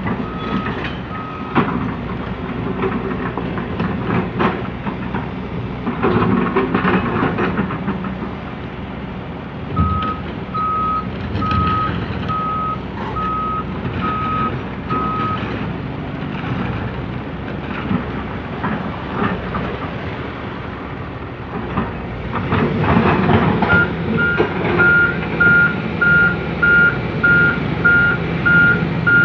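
Heavy diesel machinery running with hydraulic strain and occasional clanks, as an excavator digs. A warning alarm beeps in spells: briefly at the start, then a steady series of beeps about a third of the way in, then a louder, slightly higher-pitched series of quicker beeps from about three-quarters of the way through.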